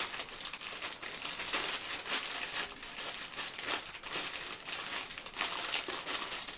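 Foil blind bag of a wrestling Mystery Minis figure crinkling as fingers squeeze and feel the figure through it: a steady run of small crackles and crinkles.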